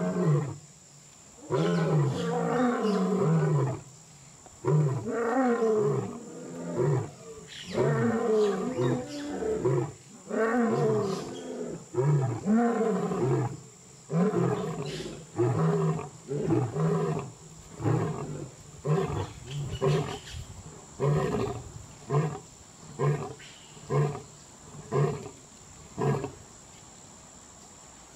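Lion roaring: a bout of long, deep calls that fall in pitch, which grow shorter and turn into a string of grunts about one a second. The grunts stop shortly before the end.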